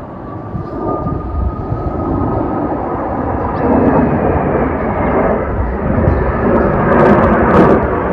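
Formation of Kawasaki T-4 jet trainers passing overhead: the jet engine noise is a rushing roar that grows steadily louder as they approach. A faint whine in it slides lower in pitch.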